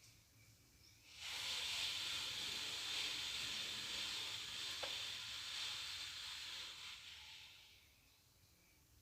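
A steady hiss that starts abruptly about a second in and fades out near the end.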